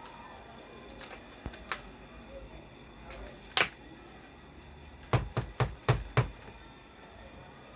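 Sharp clicks and taps of small toy pieces being handled: one loud click a little past three seconds in, then a quick run of five clicks about five to six seconds in.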